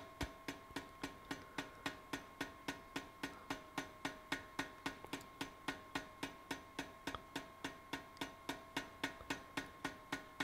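Hammer blows on a red-hot steel scythe blank over drawing dies, drawing out the upset edge. The strikes are rapid and evenly spaced, about four a second, and keep up without a break.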